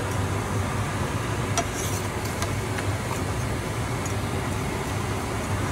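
Kitchen extractor fan running with a steady low drone. A few light clicks of the spatula against the pan come about one and a half and two and a half seconds in.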